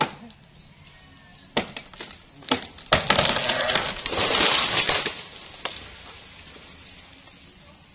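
A cut limb of a trembesi (rain tree) cracking sharply several times as it breaks away. About three seconds in comes a loud crash of branches and leaves lasting about two seconds as it falls through the foliage to the ground, then fades.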